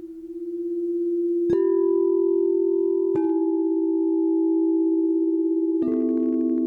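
Crystal singing bowls ringing in layered, sustained tones. One bowl hums steadily, then bowls are struck three times, each strike adding a new note that rings on over the others.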